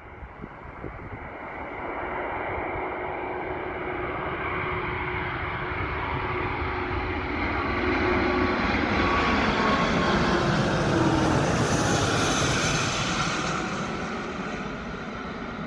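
Airbus A340-600 airliner on final approach with gear down, its four Rolls-Royce Trent 500 engines passing low overhead. The jet noise builds steadily, peaks a little past the middle with a hiss and whining tones that slide down in pitch, then begins to fade.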